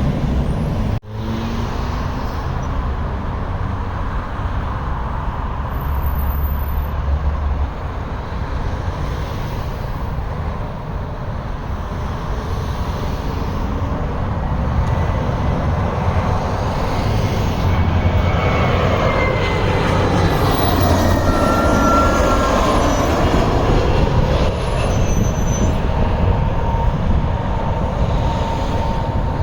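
Jet airliner landing, its rumble building and its engine whine falling in pitch as it passes, loudest in the last third.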